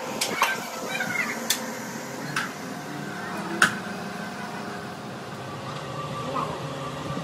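Sand-casting foundry workshop noise: a steady hum with five sharp knocks in the first four seconds, the loudest a little past three and a half seconds in.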